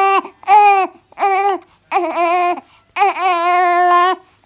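Newborn baby crying in a run of short wails, about five in quick succession, the last and longest one near the end. The baby is hungry.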